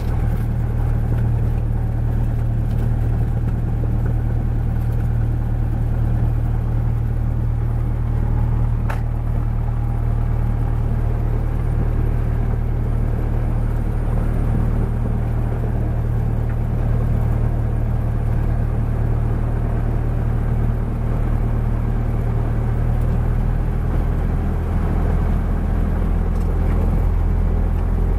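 Cessna 172's engine and propeller running steadily while it taxis on the ground, heard from inside the cabin as an even low-pitched drone.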